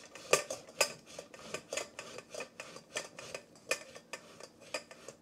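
Cold boiled potato being shredded on a flat hand-held metal grater set in a metal saucepan. It makes short scraping strokes with light metallic clicks, about two or three a second.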